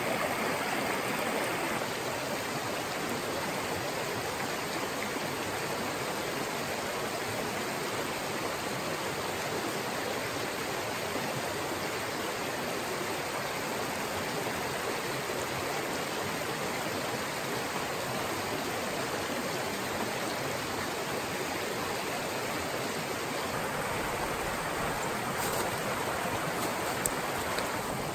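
A small mountain stream running fast over rocks in riffles and little drops, a steady even rush of water, high with rain and snowmelt. Near the end a low rumble and a few faint clicks come in.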